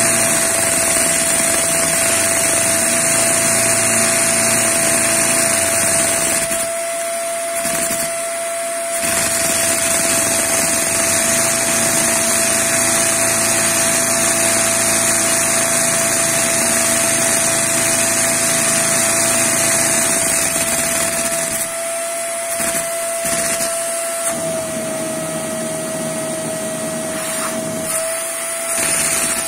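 Vacuum cleaner running with a steady whine, its hose held to a LEGO inline-two vacuum engine that it drives, with a rapid clattering of plastic parts underneath. The clatter thins out for a couple of seconds about seven seconds in, and again for much of the last third, when the whine also drops slightly in pitch.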